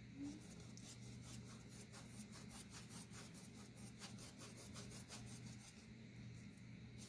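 Faint, scratchy swishes of a wide flat paintbrush worked quickly back and forth across a canvas panel, spreading a wet glaze of acrylic paint and glazing medium.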